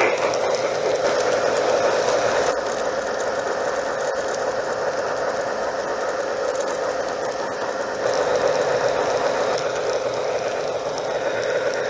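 Garden-railway model freight car rolling along the track with the camera riding on it: a steady mechanical rattle of small wheels on rail, a little louder about eight seconds in.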